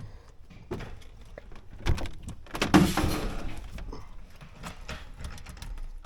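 Knocks and clicks of a pickup truck's cab door being opened and shut and someone climbing in, with the loudest knock about three seconds in.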